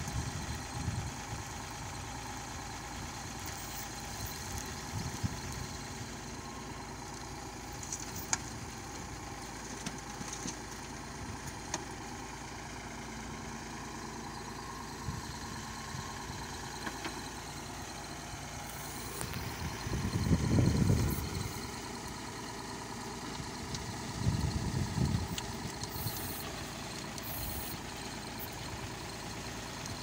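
Sonalika DI 42 tractor's diesel engine running steadily while it powers a backhoe attachment digging soil. Twice in the second half it swells into a louder, deeper rumble, the stronger one lasting about a second and a half.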